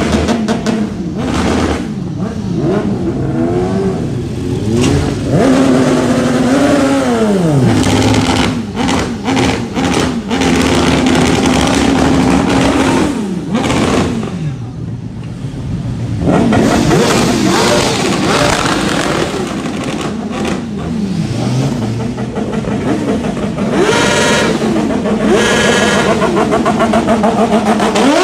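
High-capacity motorcycle engine revving hard again and again, its pitch climbing, holding steady for a few seconds, then falling away.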